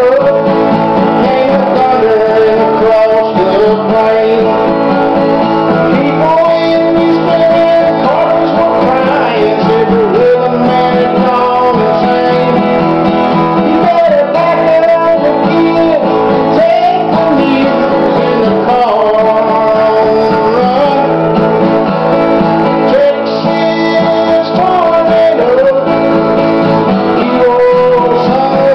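Acoustic guitar strummed steadily, with a harmonica on a neck rack playing a melody of bending notes over it: a harmonica-and-guitar instrumental break in a country song.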